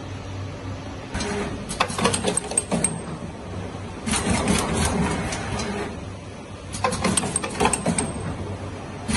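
Automatic four-head liquid filling machine running: a steady hum with repeated bursts of hissing and rattling clicks, about every two and a half to three seconds, four in all.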